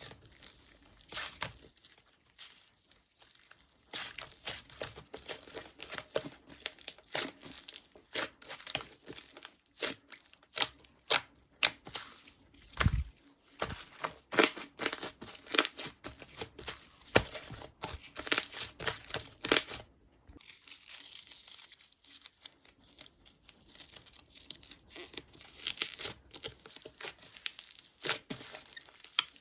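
Crinkly material being handled, with irregular crackling and tearing sounds and a single low thump about thirteen seconds in.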